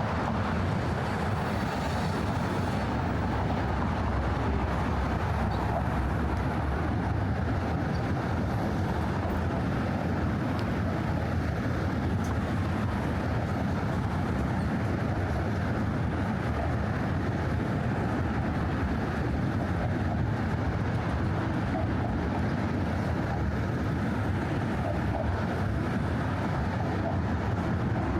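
Steady traffic on the bridge roadway: car tyres and engines blend into a continuous low hum with no single vehicle standing out.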